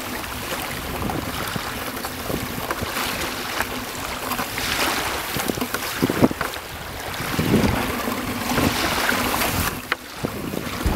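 Wind buffeting the microphone over water lapping around a small open boat, with a few short knocks and splashes from a fishing net being paid out over the side; the loudest comes about six seconds in.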